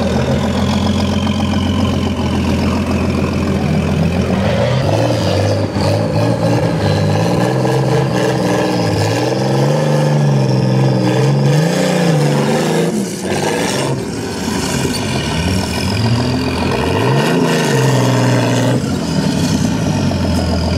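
Off-road trial vehicle's engine running steadily at first, then revving up and down over and over in short surges as it is driven over rough obstacles under load.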